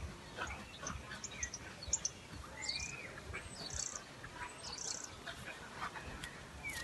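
Faint birdsong: scattered high chirps and a few short whistled calls from garden birds, over a quiet outdoor background.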